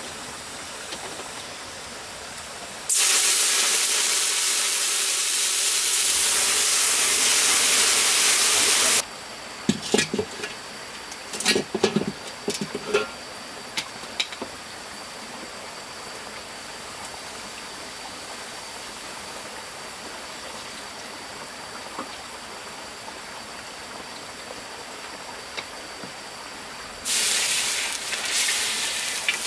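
A loud, steady hiss starts suddenly a few seconds in and cuts off abruptly about six seconds later. A wood fire under a wok follows with scattered crackles and pops. Near the end, cooking oil poured into the hot wok from a plastic bottle sizzles loudly.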